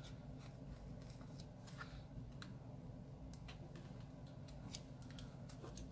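Faint, scattered light ticks and rustles of paper sticker sheets being handled, with a small sticker peeled off its sheet.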